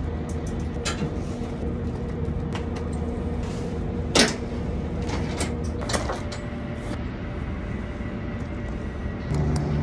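Engine idling steadily under the clatter of a heavy tarp being dragged and spread over a flatbed load, with scattered clicks and knocks and one sharp knock about four seconds in.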